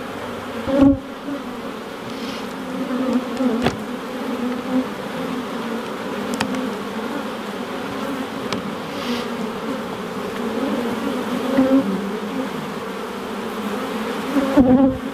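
Honey bees buzzing steadily in a dense hum around an opened nuc box. A few short knocks from a metal hive tool prying the frames loose cut across it, the loudest about a second in and near the end.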